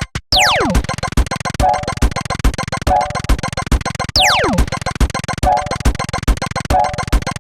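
Synthesizer sound-effect music: a falling pitch swoop, then a fast, even run of beats with a short chord repeating about once a second. The swoop and beat pattern start over a little after halfway.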